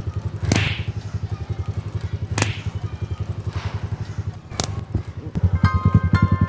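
Three sharp crack sound effects about two seconds apart over a steady fast low pulse. Light music with struck notes comes in about five and a half seconds in.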